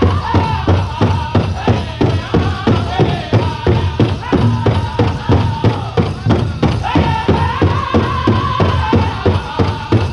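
Powwow drum group singing a chicken dance song, the big drum struck in a steady fast beat of about four strokes a second under high-pitched voices. The voices break off briefly past the middle and a high lead voice takes the song up again.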